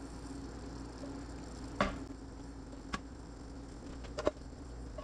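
Three light knocks of a spatula against a nonstick skillet, about two, three and four seconds in, as sauced meatballs and bok choy are pushed out onto plates, over a steady low hum.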